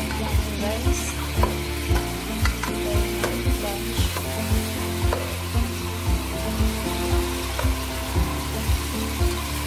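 Chicken pieces sizzling as they fry in a pot, under background music with a steady beat of about two beats a second.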